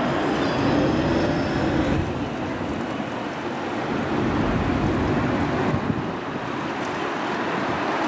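Steady city street traffic rumble, a low even noise with no single event standing out.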